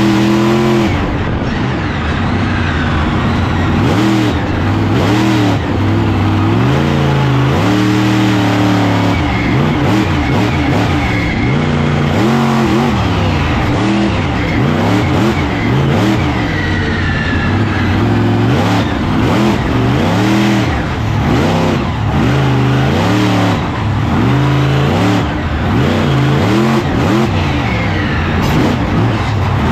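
Monster truck engine revving hard and easing off again and again, every second or two, as the truck is driven through its run.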